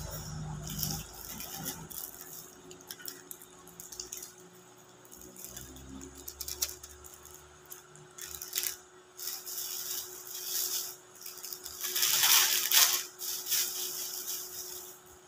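Thin plastic bags rustling and crinkling as they are handled and opened, in uneven bursts that are loudest about twelve seconds in.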